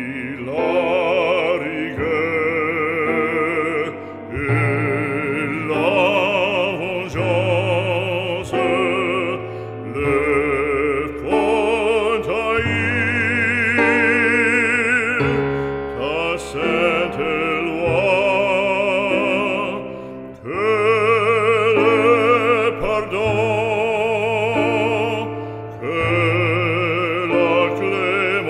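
Background music: an operatic solo voice singing long, sustained notes with strong vibrato over instrumental accompaniment.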